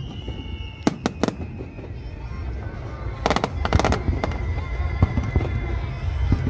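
Aerial fireworks bursting: three sharp bangs about a second in, then a quick run of crackling reports around three and a half seconds, over a steady low rumble of further bursts.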